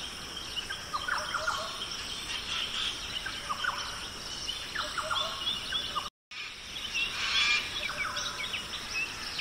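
Many birds chirping and calling in short, quick notes over a steady high-pitched background. The sound cuts out completely for a moment about six seconds in, then resumes.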